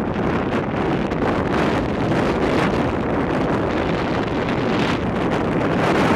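Wind buffeting the camera's microphone in a steady, loud rumble.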